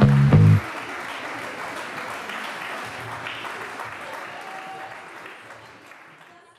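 A music track ends on its last chords within the first second, followed by audience applause that fades gradually away.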